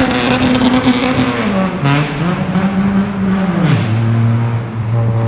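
Toyota Mark II GX71's inline-six engine revving loudly on its exhaust in a road tunnel. The note is held high, then drops in two steps to a lower steady note about four seconds in, with a short rasp at each drop.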